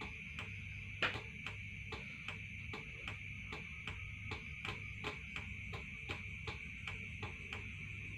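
Light clicks at an uneven pace, a few a second, with a louder one about a second in, over a steady high-pitched hum.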